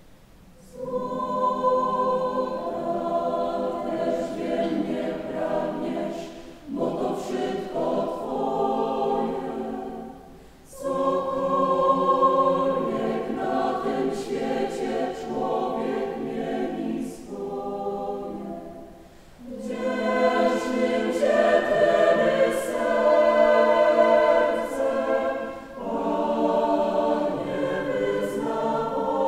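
Mixed choir of women's and men's voices singing unaccompanied in several phrases, starting about a second in, with short breaths between phrases and the hiss of sung consonants.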